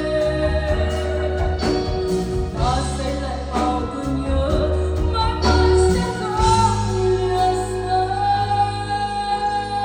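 Ballad music: a sung melody with long held notes over a steady bass and accompaniment.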